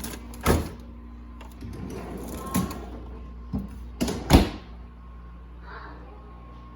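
Items being handled and set down on refrigerator shelves: about five sharp knocks, the loudest about four seconds in, with rustling between them over a low steady hum.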